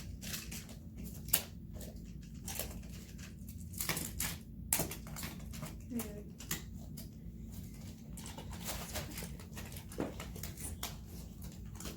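Magnetic building tiles clicking and clacking as they are handled and snapped together, with many short, irregular clicks; the sharpest comes about a second in.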